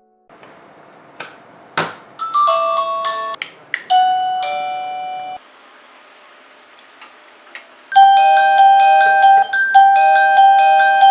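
Wireless doorbell receiver playing electronic chime tunes twice. Each tune follows small clicks, which fit presses of the battery-free, self-powered push button. The first tune is short and runs from about two to five seconds in; a second, louder tune starts about eight seconds in.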